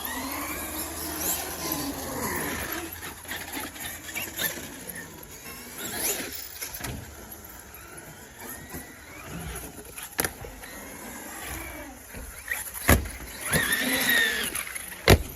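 Electric RC trucks' motors whining up and down in pitch as they are throttled and driven, with sharp hits of the trucks landing on hard cement about ten seconds in, at about thirteen seconds, and loudest near the end.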